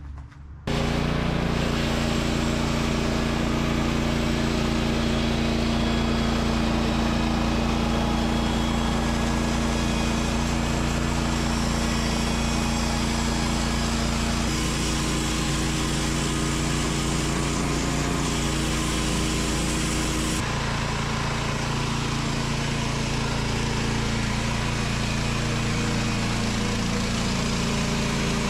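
Woodland Mills HM130 MAX portable bandsaw mill running at full speed, its band blade sawing a Douglas fir log into 2x12s. The sound cuts in sharply about a second in and holds steady, with its tone shifting a little about halfway and again about two-thirds of the way through.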